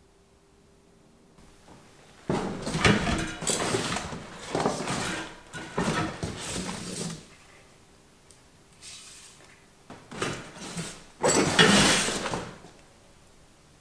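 Cardboard box rustling and scraping as knobbly bike tyres and wheels are rummaged and pulled about inside it, in two spells of handling with a pause between.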